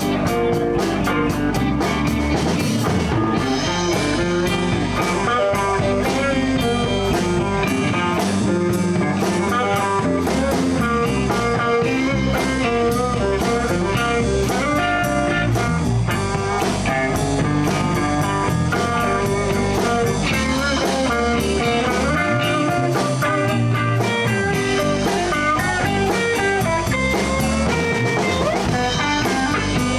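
Live blues band playing an instrumental stretch between verses, with guitar to the fore over bass and a drum kit.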